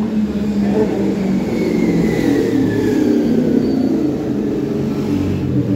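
Machinery running loudly and steadily, with a faint high tone gliding downward about two seconds in.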